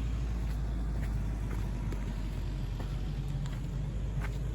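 Four-wheel-drive engine running with a steady low rumble, with a few faint clicks over it.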